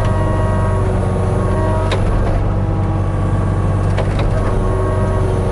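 Hitachi 35U mini excavator's diesel engine running steadily under work, with a few sharp knocks as the bucket works the crushed limestone, about two and four seconds in.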